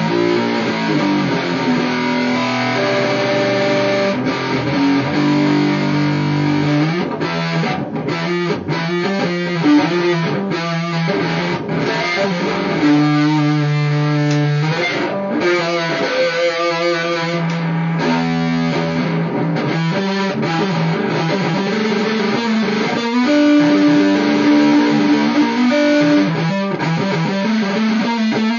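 Electric guitar played through a DIY distortion/overdrive pedal built around an MPSA13 transistor, an LM386 and a TDA2003 amplifier chip. It plays held distorted chords and notes with short breaks between phrases.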